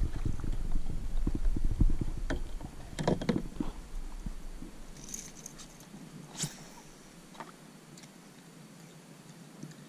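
Knocks and bumps of gear being handled on a plastic fishing kayak over a low rumble on the microphone. The rumble and knocking die away about halfway through, leaving quiet with a few single sharp clicks.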